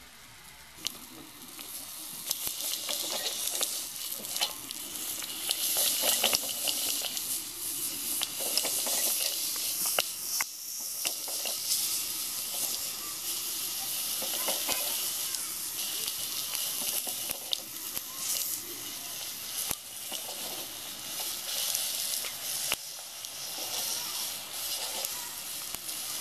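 Thick slab of pork sizzling on a hot cast-iron grill grate, a steady high hiss with scattered pops that swells up about two seconds in.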